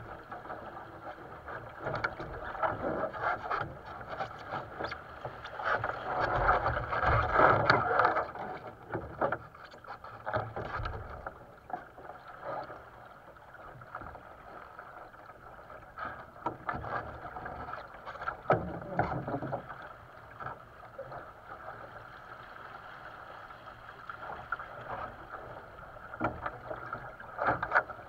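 Water rushing and slapping along the hull of a sailing dinghy under way, swelling louder about six to eight seconds in, again near the middle and just before the end, with scattered sharp knocks.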